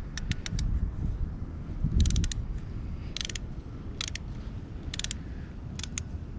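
Socket ratchet wrench clicking in about six short bursts of rapid pawl clicks, spread a second or so apart, as a bolt on the motorcycle engine is wound in by hand.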